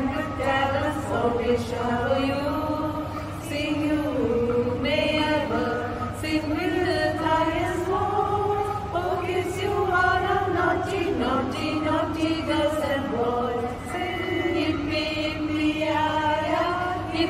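A group of women singing together, a slow melody of long held notes.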